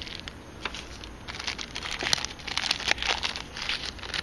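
Crinkling and rustling of paper or plastic packaging being handled, a quick irregular run of small rustles and clicks that is busiest in the middle.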